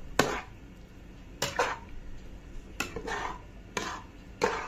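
A metal spatula stirring a pan of dal, clinking and scraping against the pan in strokes about every second or so.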